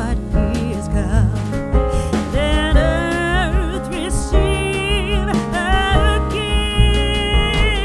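Background music: a song with a singing voice whose pitch wavers, over a steady instrumental accompaniment.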